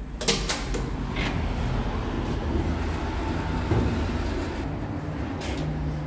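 A metal-framed entrance door's push handle and latch clack open, with a few sharp clicks in the first half-second. A steady low street-traffic rumble follows.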